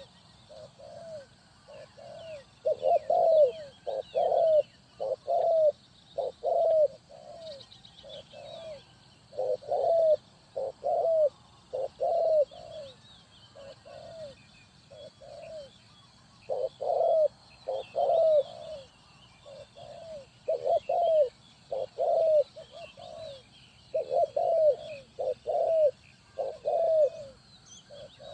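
Spotted dove cooing: phrases of several low coo notes repeated again and again, some louder than others. Faint high chirping of small birds in the background.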